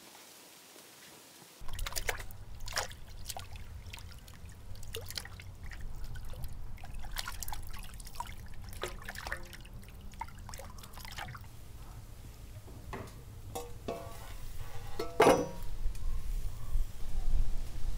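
Liquid trickling and dripping during food preparation, with scattered small clicks and knocks and one louder clink near the end, over a steady low hum that starts about two seconds in.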